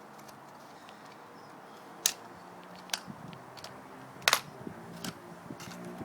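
Plastic casing of a TV remote control being prised apart: about five sharp clicks of the snap clips giving way, spaced under a second apart, the loudest about four seconds in.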